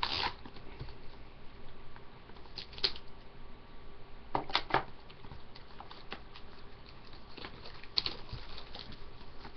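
Hands scratching and scraping at a cardboard trading-card box with an improvised tool in place of scissors, trying to cut it open. The short scratches come on and off, with louder scrapes near the start and about three, four and a half and eight seconds in.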